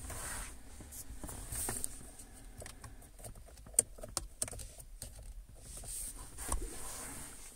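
Scattered light taps and clicks of a fingertip on a car head unit's touchscreen, over a faint low hum.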